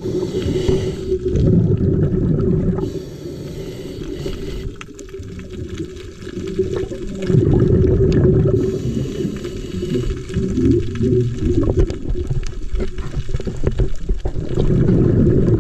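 Muffled underwater noise picked up by a camera in its waterproof housing: a low rumbling wash of water with louder surges every few seconds and scattered small clicks.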